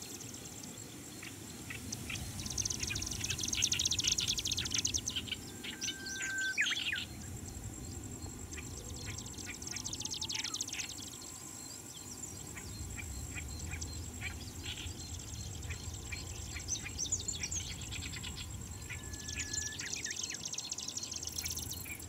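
Marsh grassbird song: rapid buzzy phrases that come in three spells, about two seconds in, near ten seconds and near the end. Other reedbed birds sing around it, and a long, level whistle comes twice.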